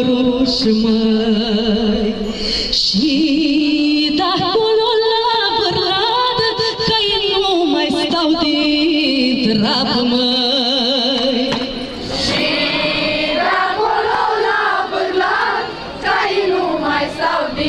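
A woman singing a Romanian folk song, holding long notes that waver widely in pitch.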